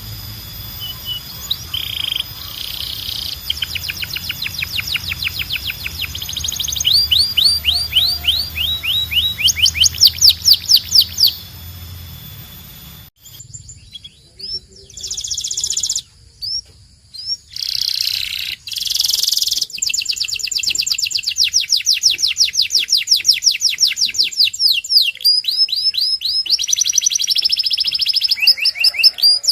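Domestic canary singing: long rolls of fast, evenly repeated trill notes that change pitch from phrase to phrase, with a brief break about halfway through.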